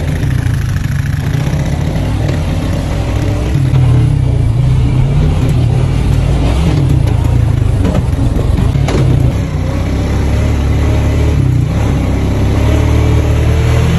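Off-road buggy engine running steadily under way, with a single short knock about nine seconds in.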